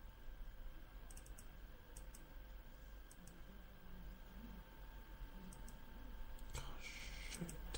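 Faint steady hum and hiss, with a few faint clicks scattered through and a short rise in noise near the end.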